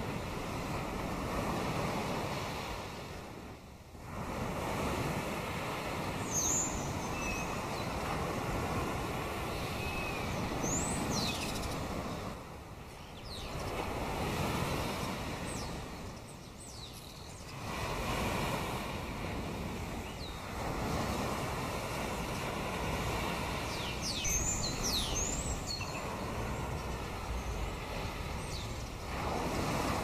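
Sea waves washing in, in repeated swells that rise and fall every few seconds. Birds give a few short, high chirps about six to eleven seconds in and again around twenty-five seconds in.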